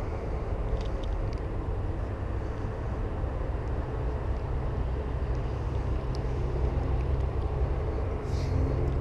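Low steady engine rumble, with a hum that grows steadier about halfway through.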